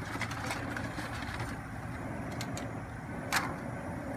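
Gas burner under a large steamer pot running with a steady rushing noise, with one sharp click a little over three seconds in.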